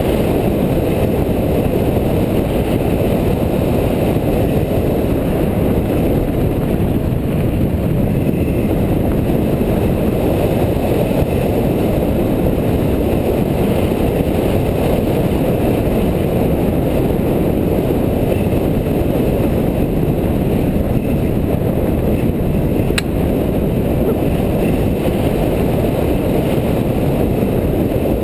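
Steady wind rumble on the camera microphone mixed with mountain bike tyres rolling over a dirt and gravel fire road on a descent. A single sharp click comes near the end.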